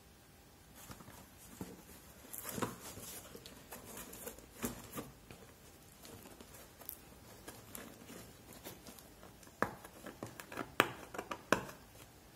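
Hands handling a cardboard product box: scattered taps and scrapes, then a quick run of sharp clicks near the end as fingers pick at the box's edge flap.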